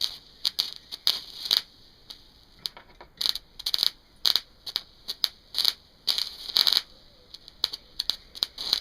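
Welding electrode arcing off two 12-volt car batteries in series (24 volts): irregular crackling and sputtering in short bursts with gaps between. The arc keeps striking and going out rather than holding steady.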